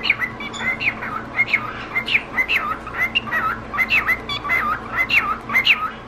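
Male cockatiel chattering: a rapid string of short chirps and whistled warbles, about three to four a second.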